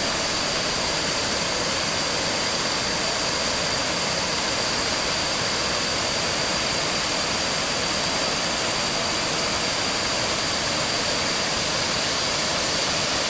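Waterfall cascading: a steady, even rush of falling water, with a faint steady high tone over it.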